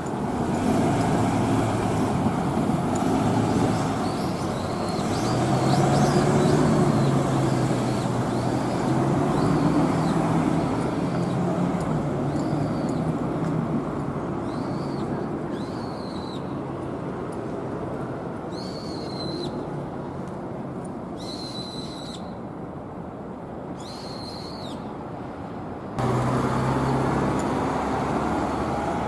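Train running past a level crossing: a steady low rumble that swells and then slowly fades over about twenty seconds. Short high chirps or squeaks repeat over it every second or two. Near the end the sound cuts abruptly to a louder, steady traffic-like noise.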